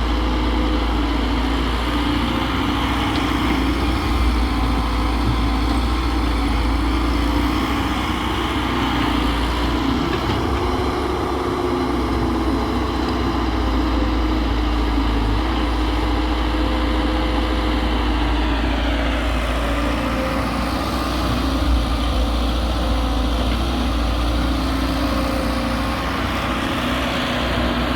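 Diesel engines of an excavator and a tractor running steadily, the engine pitch shifting about two-thirds of the way through.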